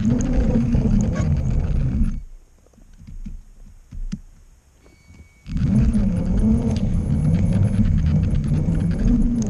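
On-board sound of a LEGO train's motor and plastic wheels running along LEGO track: a loud, steady rumble with a rattle. It cuts out suddenly about two seconds in, leaving a quiet gap with a couple of faint taps, then starts up again suddenly about five and a half seconds in and runs on.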